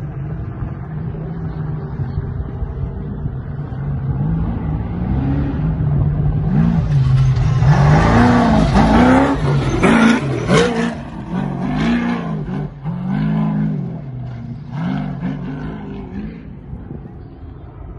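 Off-road desert race truck's engine approaching and passing close, revving up and down over and over as it climbs a dirt trail. It grows louder to a peak about halfway through, with a hiss of spraying dirt at its loudest, then fades away.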